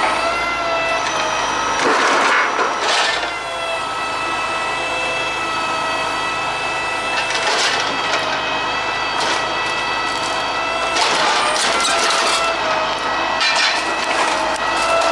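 Truck-mounted crane running with a steady whine from its power unit, while its hydraulic grapple drops and crushes scrap wood: planks clatter and crack several times, around two seconds in, near the middle, and again in the last few seconds.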